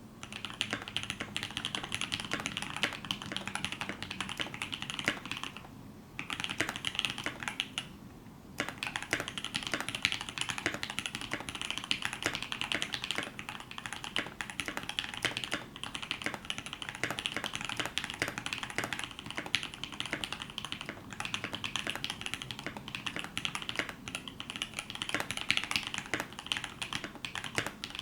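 Fast typing on a KBD75v2 mechanical keyboard with an aluminium plate, case foam and lubed, filmed Banana Split linear switches: dense, clacky keystrokes. The typing stops briefly twice, about five and a half and eight seconds in.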